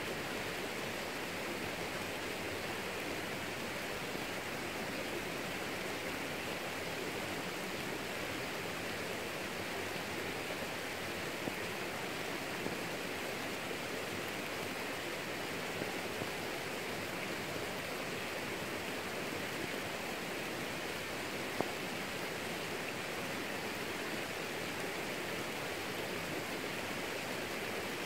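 Steady rain falling on garden plants, a constant even hiss. A few brief ticks stand out from it.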